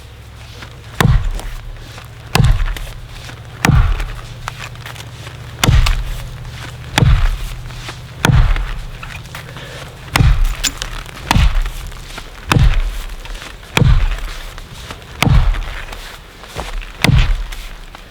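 Axe chopping the back cut above the felling notch in a standing tree trunk: about a dozen strong, evenly paced blows, a little over a second apart.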